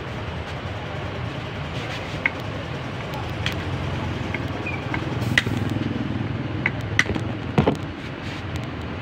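Steady low hum of a running vehicle engine, with about half a dozen sharp metallic clicks and taps from a screwdriver working on a Honda Accord distributor. The loudest clicks come in the second half.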